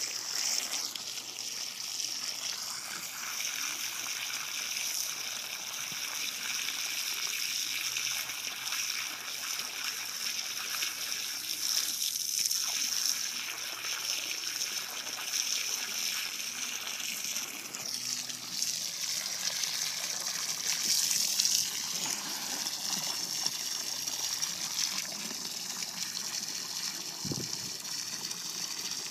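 Jet of water from a garden hose splashing onto the water surface and a manatee's snout: a steady hissing splash, with a brief dull knock near the end.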